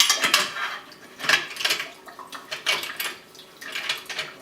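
A series of irregular metal clinks and knocks as a copper essential-oil still's column is handled and seated back onto its pot.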